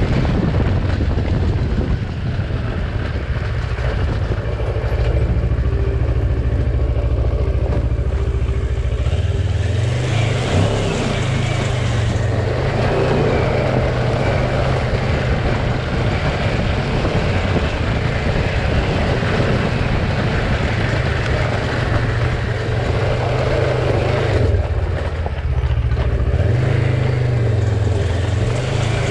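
Kawasaki Versys 650's parallel-twin engine running under load on a rocky dirt trail. Its pitch shifts with the throttle about ten seconds in and again near the end, over a steady rushing noise.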